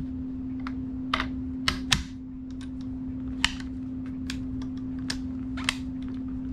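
Sharp metallic clicks and snaps from the action of a Model 1878 Trapdoor Springfield rifle worked by hand: the breech block is opened and shut and the hammer handled, in a function check after reassembly. The clicks come irregularly, about one a second, over a steady low hum.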